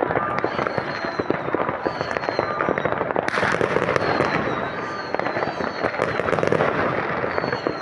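New Year's Eve fireworks: a dense, continuous barrage of firecracker cracks and bangs, with several high whistles falling in pitch. About three seconds in, a louder hissing crackle sets in.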